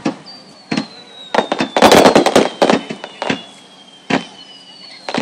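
Aerial fireworks bursting: single sharp bangs with a rapid cluster of crackling reports about a second and a half in. A thin high whistle slides slowly down in pitch through most of it.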